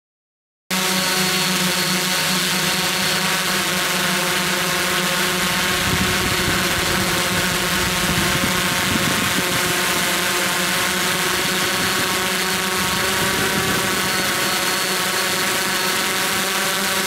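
Multirotor drone's motors and propellers humming steadily, a dense buzz at one fixed pitch, starting abruptly just under a second in.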